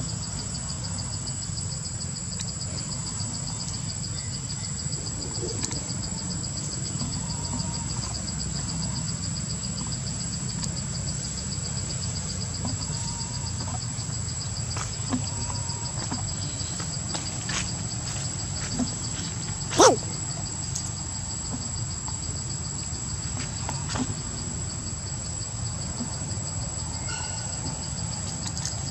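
Insects chirring steadily in a high, fast-pulsing drone, with a second steady high tone above it, over a low rumble. Scattered small clicks and rustles, and one short sharp sound, the loudest thing, about twenty seconds in.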